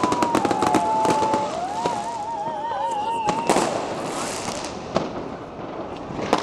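Fireworks and firecrackers going off: a rapid string of sharp bangs and crackles in the first second or so, overlapping whistling fireworks whose pitch glides and warbles. A loud bang comes about three and a half seconds in, followed by a few scattered bangs.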